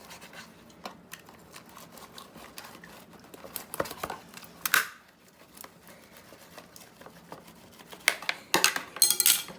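Sticky homemade fluffy slime being kneaded and pulled by hand, a run of small wet clicks and crackles, with a few louder rustles about halfway through and near the end.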